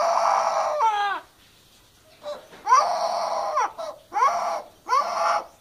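Amazon parrot imitating a child's crying: several wailing, sobbing cries with short breaks between them. Each cry opens with a rising note and is then held for up to about a second.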